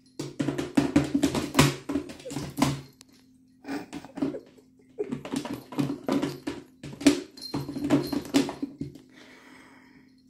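A cat pawing and scratching at a plastic food container, a rapid clatter of knocks and scrapes in two long spells with a short break about three and a half seconds in. Under it runs the steady hum of a pet water fountain's pump.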